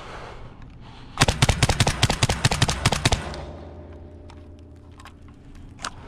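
Black Aces Tactical FD12 semi-automatic 12-gauge bullpup shotgun, suppressed with a SilencerCo Salvo 12, fired as fast as it will cycle: a rapid string of shots over about two seconds, starting about a second in, until the magazine runs empty. A faint fading ring follows the string.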